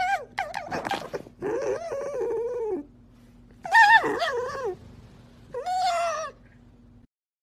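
A dog whining in four drawn-out calls that rise and fall in pitch, with short gaps between them.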